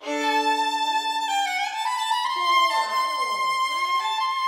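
Solo violin playing a smooth, sustained phrase: it opens on two notes sounded together, moves upward, and holds a long high note from about halfway through.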